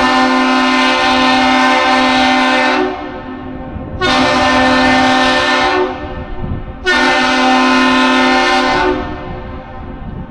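A horn sounds three long blasts, the first the longest and the next two a little shorter, over a faint steady hum. It is the Great Lakes master salute of one long and two short blasts, sounded between a freighter and the Aerial Lift Bridge.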